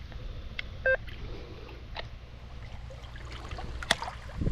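Electronic carp bite alarm giving one short beep about a second in, among a few light clicks from handling the rod pod.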